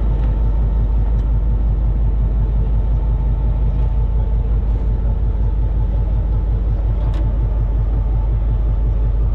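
Diesel locomotive engine running steadily, a deep low rumble heard from inside the cab while the train is under way.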